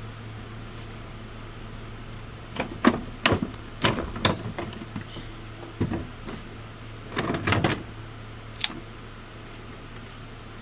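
Plastic air filter housing being worked loose and lifted out of a car's engine bay: several bunches of hard clicks, knocks and clatter over a steady low hum.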